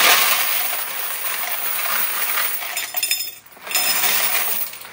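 A bucketful of quarters poured into the hopper tray of an electric coin counter: a steady rush of clinking coins that breaks off briefly about three and a half seconds in, then picks up again.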